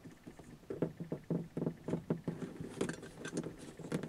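Irregular small plastic clicks, taps and rattles from a replacement Mercedes W123 dome light being handled and plugged into its wiring connector in the headliner, starting about a second in.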